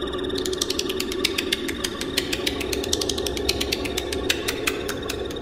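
A fast, uneven run of sharp mechanical clicks like a ratchet, over a steady low hum and a thin high steady tone.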